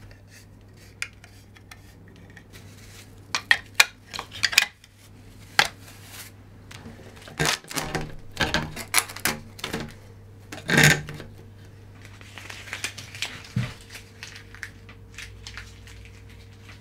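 Scattered clicks, taps and knocks of hard plastic parts and a small hex key being handled as a 3D-printed PLA dust shoe is tightened onto a CNC spindle and its brush section and hose are fitted. The loudest clatter comes about two thirds of the way in, over a steady low hum.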